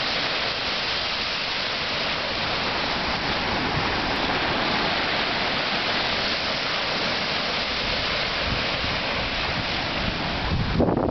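Ocean surf breaking on a sandy beach, a steady wash of waves. Near the end, wind starts buffeting the microphone.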